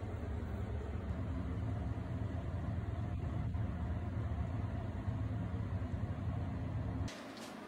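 Water running into a bathtub, a steady low rush that cuts off suddenly about seven seconds in.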